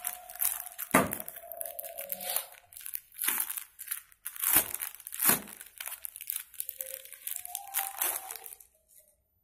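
Clear plastic polybag crinkling and crackling as it is handled and pulled open around a folded T-shirt, in irregular rustles with a few sharp cracks; it stops near the end.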